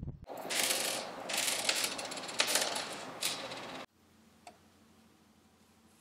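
Domestic knitting machine's carriage rattling across the metal needle bed in about four clattering surges, cutting off abruptly about two-thirds of the way through. After that only a couple of faint small clicks.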